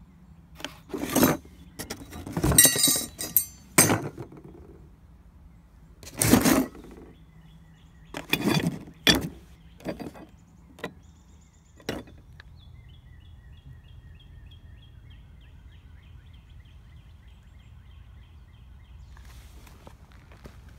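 Loud knocks and clinks, about a dozen of them over the first twelve seconds, like handled metal parts. Then a small bird sings a quick, fainter series of repeated chirps, each run falling in pitch.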